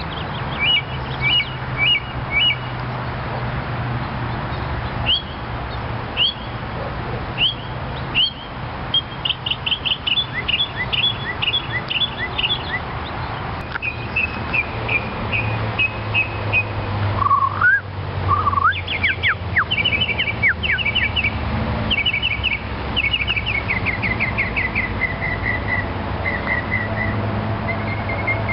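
A songbird singing a long, varied song: short runs of chirps and whistles, each note repeated several times before it switches to a new phrase.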